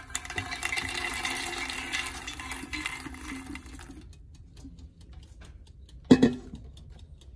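Roasted fox nuts (puffed lotus seeds) tipped from an air fryer basket into a ceramic bowl: a dense, light rattle for about four seconds that then stops. A single loud knock follows about six seconds in.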